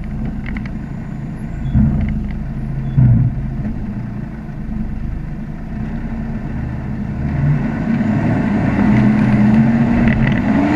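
A motor vehicle's engine running, growing louder over the last few seconds and revving up and back down near the end. Two dull thumps about two and three seconds in.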